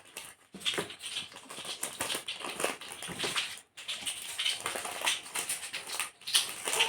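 Rustling and crinkling of packaging being handled: a run of irregular small clicks and crackles.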